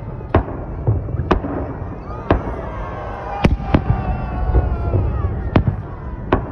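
Aerial fireworks shells bursting in a display: about seven sharp bangs at uneven intervals over a steady low rumble.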